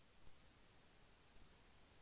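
Faint steady hiss: the Sound Blaster Play! 3 USB sound card's own noise floor, recorded with no microphone connected and amplified, still there with the microphone input turned down to 0%.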